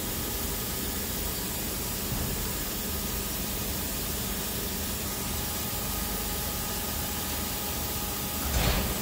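Steady hiss with a faint underlying hum from an idling CNC machining centre, its cutting just finished. A brief louder swell comes near the end.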